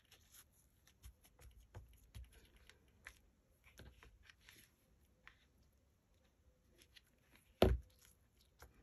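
Quiet handling of paper and lace on a cutting mat: faint rustles and small taps, with one sharp thump near the end as hands press a piece down onto the board.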